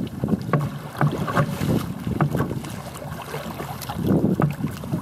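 Choppy water slapping and splashing against a kayak's hull, with irregular sharp splashes, under wind buffeting the microphone.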